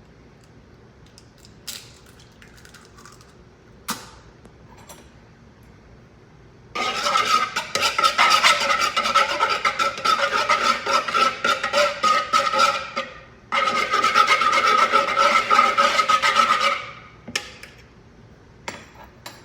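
Eggs being beaten in a bowl: rapid, even scraping strokes with the bowl ringing, in two bouts of about six and three seconds split by a short pause, after two light knocks.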